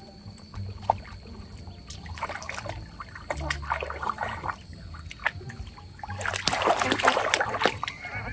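Water splashing and sloshing in a small pool, in irregular bursts that grow heaviest near the end.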